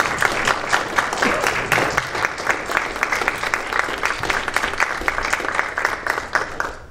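Audience applauding: many people clapping their hands together, dying away just before the end.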